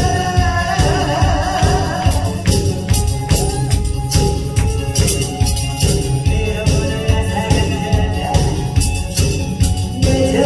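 Upbeat song music with a steady beat.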